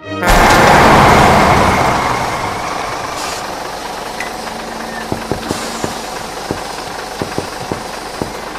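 Truck sound effect: a sudden loud rush of noise that fades over a couple of seconds into a steady engine rumble, with a run of sharp clicks in the second half.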